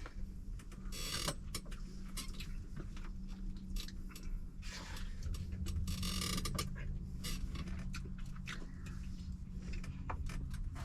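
A fork clicking and scraping on a plate while the fish is tasted, with a steady low hum underneath.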